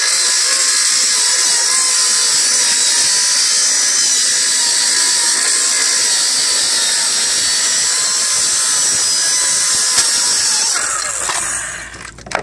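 Ryobi cordless circular saw with a Diablo blade ripping lengthwise through 5/8-inch plywood, the motor running steadily under load the whole cut. Near the end the blade clears the board and the saw winds down.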